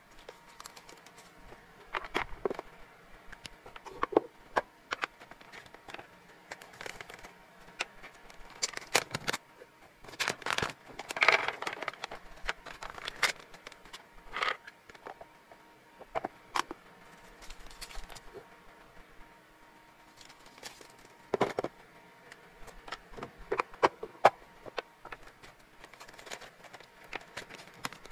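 Irregular clicks and knocks of clear plastic storage boxes and dry hamster biscuits being handled on a table, with a denser run of clicks about ten to twelve seconds in. A plastic treat bag crinkles near the end.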